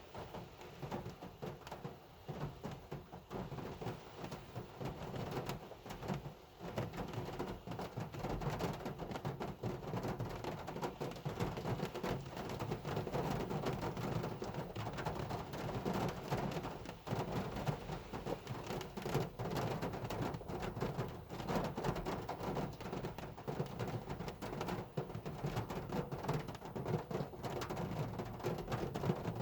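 Heavy rain drumming on a car, a dense, continuous patter of drops that grows somewhat louder about eight seconds in.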